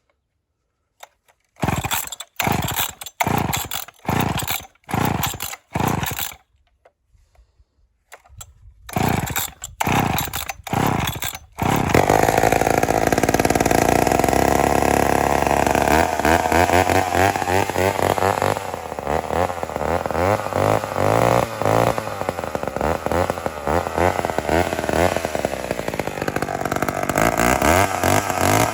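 McCulloch Mac 10-10 two-stroke chainsaw being pull-started: two sets of short, sharp starter-cord pulls, then it catches about twelve seconds in and runs loudly, its engine speed rising and falling.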